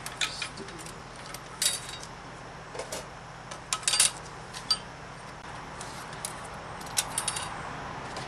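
Steel clutch plates and friction discs of a Mitsubishi F4A42 automatic transaxle clinking against each other and the splined clutch drum as they are set into the clutch pack by hand. The clinks are sharp, metallic and irregular, about one a second, several with a short ring.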